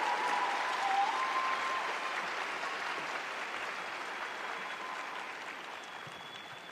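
Audience applause that dies away steadily, with a few faint cheers in the first couple of seconds.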